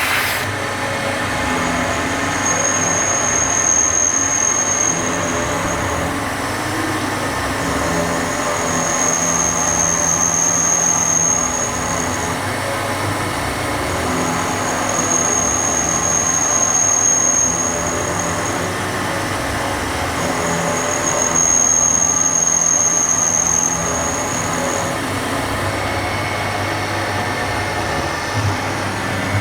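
DMG Maho CNC milling machine taking a light finishing pass in 16CrMo4 steel, its spindle running at 2500 rpm with a Lamina-insert cutter. The machine noise is steady, and a high thin whine comes and goes four times, each time lasting about four to five seconds.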